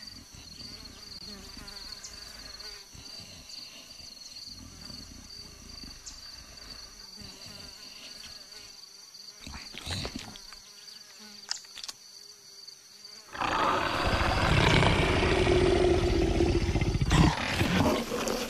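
Steady savanna insect drone with a few faint clicks, then about three-quarters of the way in a loud, strained big-cat growl from a cartoon leopard as it rolls round under the branch.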